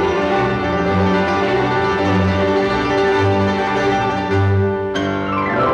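Symphony orchestra playing sustained chords over a pulsing low bass, with a sweep falling in pitch near the end.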